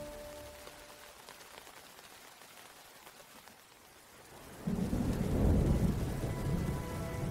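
A faint hiss of light rain, then about four and a half seconds in, heavy rain comes in suddenly with a low rumble of thunder.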